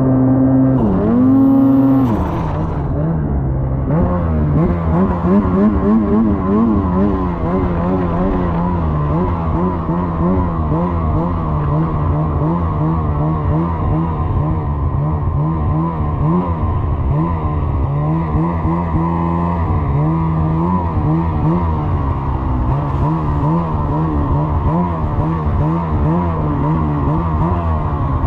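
Snowmobile engine running under way, its pitch rising and falling quickly and continually as the throttle and load change. In the first two seconds it holds a higher, steadier pitch that dips once and recovers.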